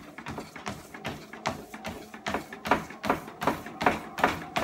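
Running shoes striking a treadmill belt at an easy warm-up jog, an even rhythm of about three footfalls a second that grows louder as the stride settles. A steady hum from the treadmill runs underneath.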